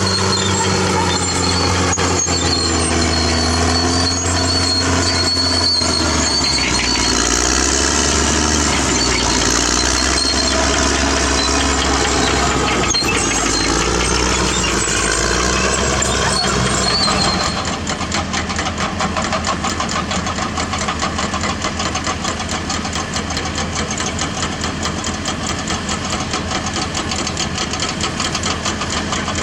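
CAT D6R bulldozer's diesel engine running under changing throttle, its pitch rising and falling, with a thin high whine over it. About 17 seconds in it drops to a lower, steady idle with a rapid, even diesel clatter.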